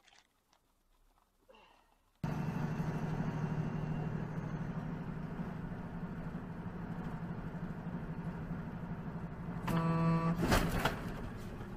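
Steady engine and road noise heard from inside a moving car, starting suddenly about two seconds in. Near the end a car horn sounds briefly, followed at once by a loud, sudden noise.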